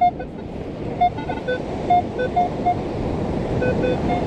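Minelab Equinox metal detector giving a string of short, irregular beeps at several different pitches as it sounds on a coin target, a penny, in freshly dug sand. Steady surf and wind noise underneath.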